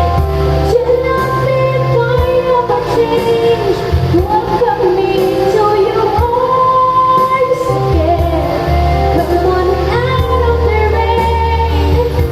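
Music: a song sung by a woman, her melody over held bass notes.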